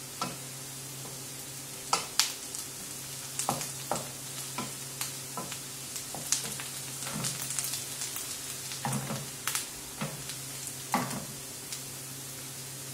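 A wooden spoon stirring diced onions and carrots as they fry in oil in a ceramic-coated frying pan: irregular scrapes and knocks against the pan over a steady frying hiss. The stirring stops near the end.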